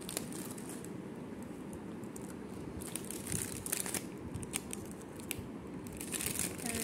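Plastic wafer packet crinkling in scattered bursts as wafers are pulled out of it, the crinkling busiest about three seconds in and again near the end.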